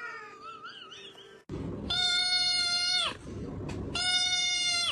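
Cat giving two long, drawn-out meows, each a little over a second, holding one pitch and dropping at the end.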